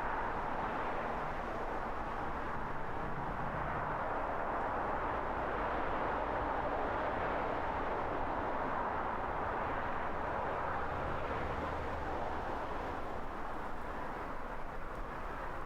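Road traffic ambience: a steady wash of tyre and engine noise from cars driving on a road, with a low rumble underneath.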